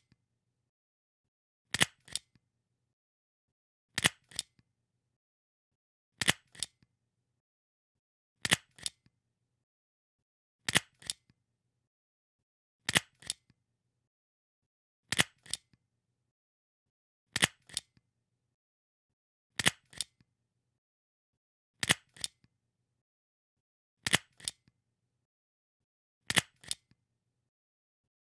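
Stapler being pressed about once every two seconds, a dozen times. Each press gives a sharp click and then a second, softer click a fraction of a second later.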